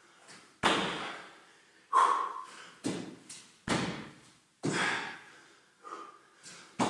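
Bare feet thudding on a rubber gym floor during spider mountain climbers, about one thud a second, with the foot landing beside the hand on each rep.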